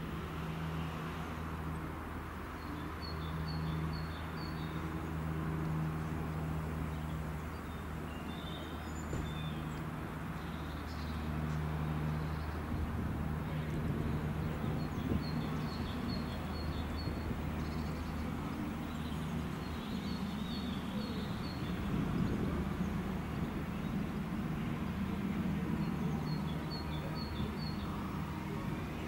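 Class 345 electric train approaching along the line: a steady low hum, with the rumble of the train growing louder in the last third. Small birds chirp in short repeated phrases over it, several times.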